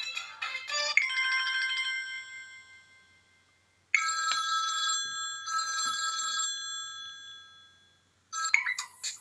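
Samsung Galaxy Ace stock ringtones playing: a busy tune ends in the first second, then a bell-like chime sounds twice, each ringing out and fading over a few seconds. Near the end another quick, note-by-note ringtone starts.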